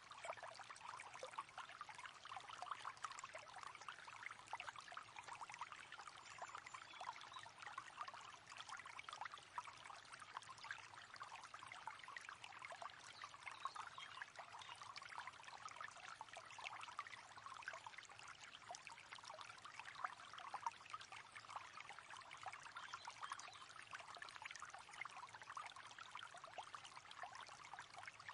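River water flowing: a faint, steady rush of many small splashes and trickles that holds even throughout.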